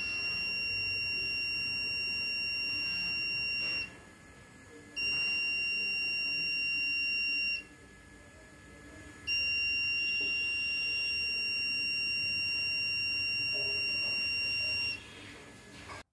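A 5 V buzzer in a TIP31C transistor water-overflow alarm circuit giving a steady high-pitched tone, sounding three times: for about four seconds, again for a couple of seconds, then for about six seconds. Each tone means water is bridging the two probe wires, switching the transistor on to drive the buzzer.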